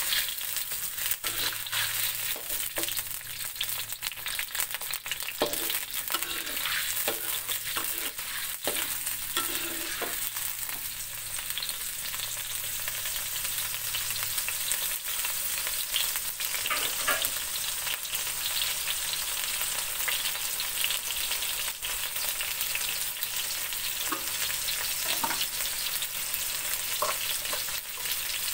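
Ground spice paste sizzling steadily in hot oil in a metal wok, with a metal spatula scraping and clinking against the wok now and then as it is stirred.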